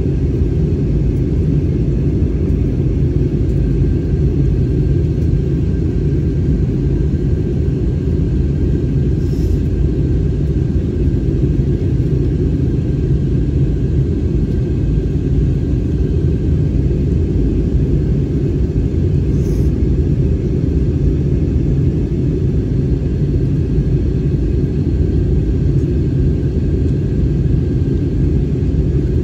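Steady low rumble of a jet airliner's engines and rushing air, heard from inside the passenger cabin in flight, with a faint steady whine above it.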